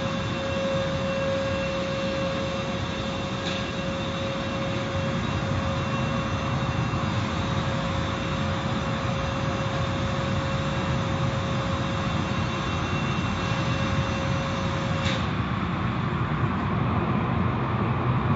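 Car wash machinery running with a steady rushing noise. A steady tone in the noise stops with a click about fifteen seconds in.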